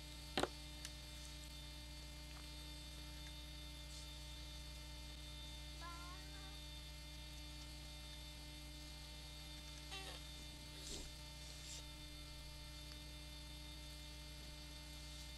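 Steady electrical mains hum in the recording, with one sharp click about half a second in and a few faint brief noises later on.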